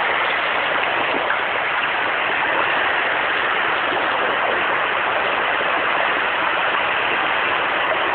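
Steady rushing noise of sea waves washing in, with no distinct breaks or splashes.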